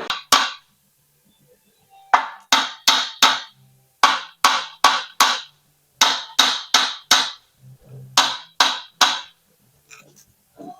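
Hammer blows on a metal part, sharp ringing strikes in runs of three or four, about two or three a second, with short pauses between runs.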